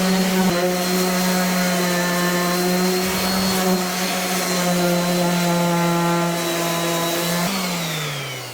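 Electric disc sander running steadily on a wooden board, its sanding disc worn so it has little grit left to grab. Near the end it is switched off and its motor winds down in a falling whine.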